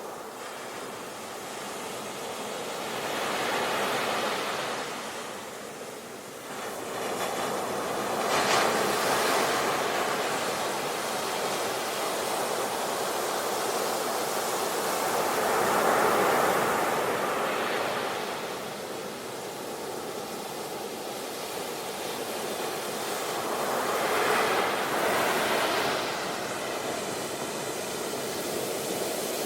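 Ocean surf breaking on a beach: a steady rushing wash that swells and falls back as each wave comes in, about four times.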